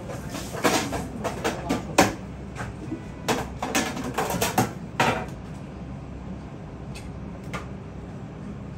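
Clatter of kitchen containers and utensils being handled at a sushi counter: a quick run of knocks and clinks over about four seconds, the sharpest about two seconds in, then only a couple of faint clicks over a steady low hum.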